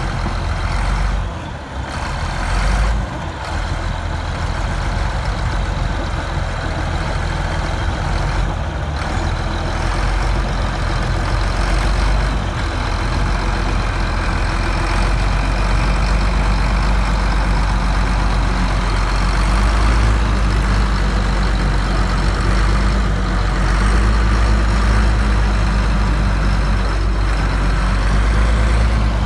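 Bulldozer's diesel engine running close by, a steady heavy low rumble that grows a little louder about halfway through.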